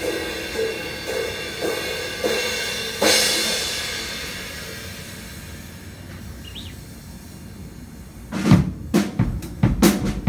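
Drum kit played live in a jazz drum solo: soft, evenly spaced pitched drum strokes, then a cymbal crash about three seconds in that rings out and fades. After a quiet stretch come loud, hard drum strikes near the end.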